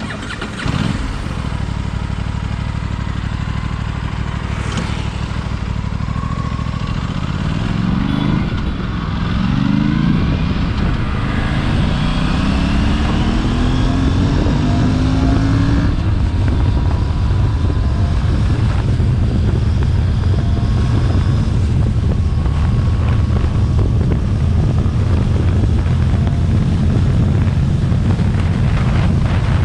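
Aprilia RS 457's 457 cc parallel-twin engine through its stock exhaust, running steadily, then revved briefly twice about eight to ten seconds in. It then climbs more slowly and holds a steady, higher engine speed, around 5,000 rpm, for the second half.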